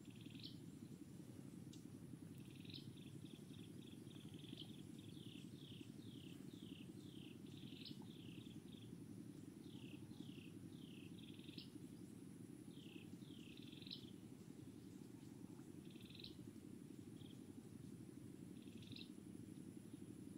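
Faint small animal chirping in runs of short, high notes, each falling in pitch, about two a second, over a steady low hum.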